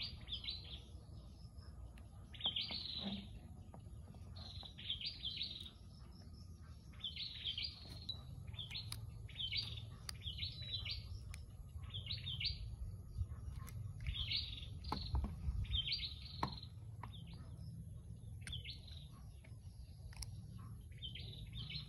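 A small bird chirping repeatedly: short clusters of high chirps every second or two, over a low background rumble, with a few faint clicks.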